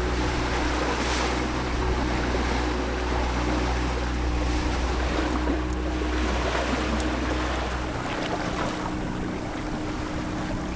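Sailboat's engine running steadily under the wash of water and wind while the boat is motoring. About eight seconds in the engine drone drops out, leaving water rushing along the hull and wind.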